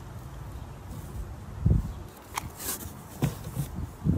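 Light handling sounds: a few dull thumps, the loudest a little under two seconds in, and faint clicks as a plastic laser module and its power cord are turned over in the hands.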